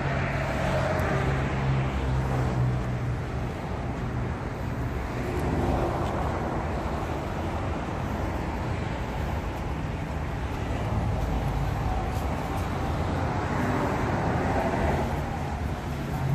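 Steady traffic noise from a busy highway: vehicles passing one after another, the road noise swelling and easing as each goes by, with a low engine hum near the start and again near the end.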